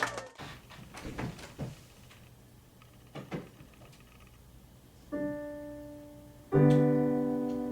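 Piano: after a few quiet seconds, a soft chord about five seconds in, then a louder chord about a second and a half later, each left to ring and fade.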